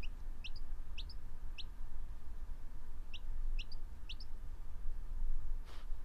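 A young domestic chick peeping: seven short, rising peeps in two bunches, four and then three, over a steady low rumble. A brief soft rustle comes near the end.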